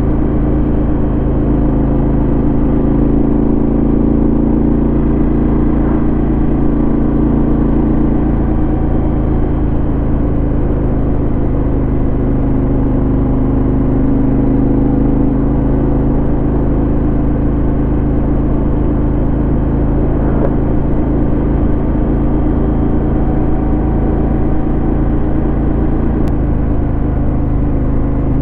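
Yamaha XT1200Z Super Ténéré's parallel-twin engine running steadily through a LeoVince SBK aftermarket exhaust, a constant low exhaust note with no revving.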